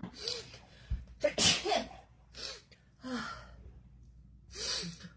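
A person sneezing in a run of about five sneezes, the loudest about a second and a half in, set off by a nasal swab test.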